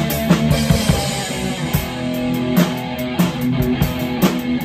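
Live rock jam: an amplified electric guitar holding chords over a drum kit keeping a steady beat. There is a cymbal wash in the first second or so.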